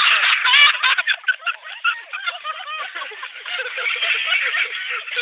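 People laughing hard, a rapid run of high, cackling laughs and shrieks.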